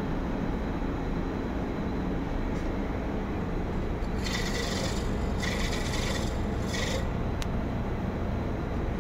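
Electrode sharpener of an RDE oil spectrometer running steadily, with three short rasping grinding passes about four to seven seconds in as a graphite rod electrode is sharpened in it.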